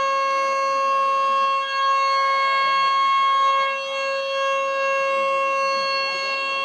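Federal Signal Model 2 electromechanical siren sounding at full speed, holding one steady pitch.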